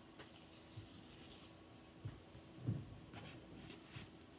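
Faint cloth rubbing with a few soft thuds and light ticks as a folding knife is unrolled from a cleaning cloth and handled.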